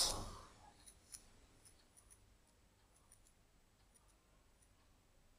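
Near silence: room tone, with two faint short ticks about a second in.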